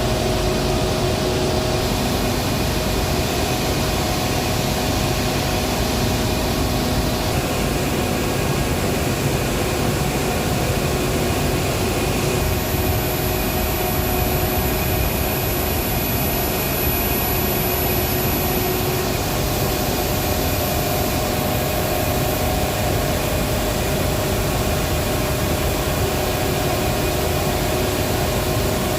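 Heavy power plant machinery running steadily: a loud, even rush of noise carrying several steady hum tones. A faint high whine comes in about twelve seconds in and fades out some ten seconds later.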